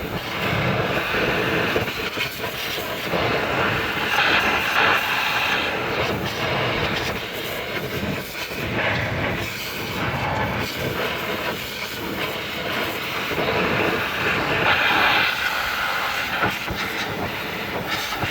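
Pressure washer spraying, its high-pressure water jet blasting against the underside of a car, a steady hissing spray that rises and falls a little as the wand is moved.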